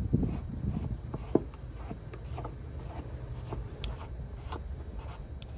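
Plastic livewell aerator strainer being screwed by hand into its threaded fitting on the aluminum boat hull, giving faint scattered ticks and scrapes as the threads turn, with a low steady rumble underneath.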